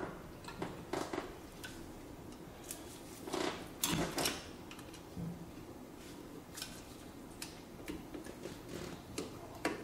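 Light metallic clicks and scrapes of rear drum brake hardware being worked through a slot in the brake shoe with pliers. The clicks are scattered, with a small cluster of louder ones about three to four seconds in.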